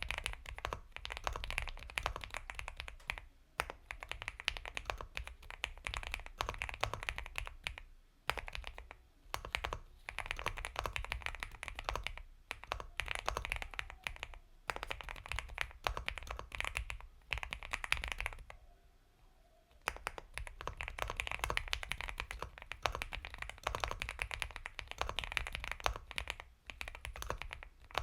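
Steady typing on an Epomaker x Feker Galaxy 80 mechanical keyboard with linear Gateron Milky Yellow Pro switches: fast runs of keystrokes broken by brief pauses, with one longer pause of about a second and a half roughly two-thirds of the way through.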